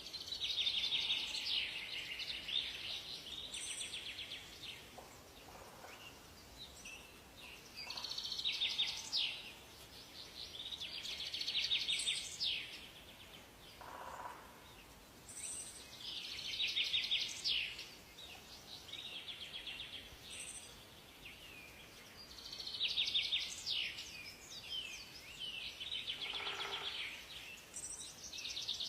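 Songbirds singing: a rapid, trilling song phrase about two seconds long repeats every few seconds, with short high-pitched notes between the phrases.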